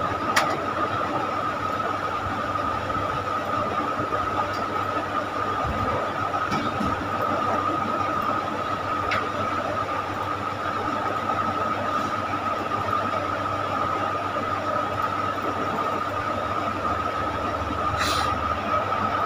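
Steady background hiss and hum with a constant high whine, and a few faint mouse clicks, one a little louder near the end.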